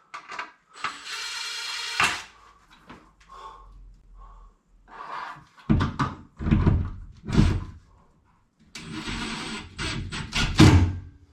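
Power driver whirring in two runs, a short one about a second in and a longer one of about two seconds near the end, driving screws to fix a smoke alarm base to the ceiling. Knocks and handling clatter come between the runs and just after the second one.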